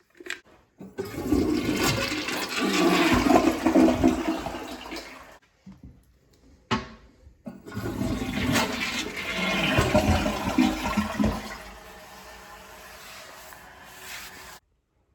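A toilet flushing twice: each a loud rush of swirling water lasting several seconds, the second trailing off into a quieter steady rush of water near the end.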